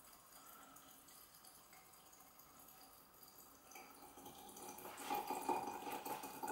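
Apple cider vinegar poured from a plastic bottle into a glass jar: a faint trickle at first, growing louder about four seconds in as the stream splashes into the jar.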